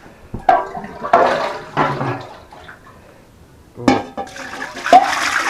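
Water poured from a saucepan into a large pot, a loud splashing rush starting about four seconds in. A few knocks come before it, in the first two seconds.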